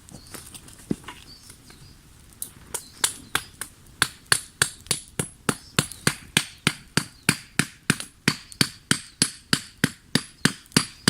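Rapid, regular hammering blows on wood, about three a second, starting about two seconds in after a few scattered knocks. Each blow has a slight high ring. This is work on a green-wood pot-hanger stick.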